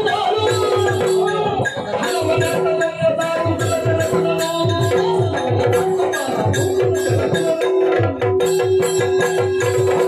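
Yakshagana himmela music for a dance passage: chande and maddale drums played in a fast beat over a steady drone, with sharp high strokes and the jingle of the dancers' ankle bells.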